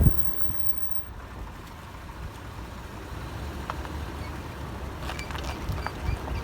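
A vehicle driving with low rumble and a thump at the start. Short high squeaks come now and then, mostly near the end; the squeak comes from the transfer case, not the brake pads.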